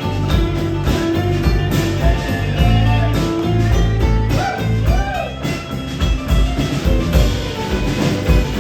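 Live rock band playing an instrumental passage: guitars over bass and drum kit, with a few bending, wavering notes about halfway through.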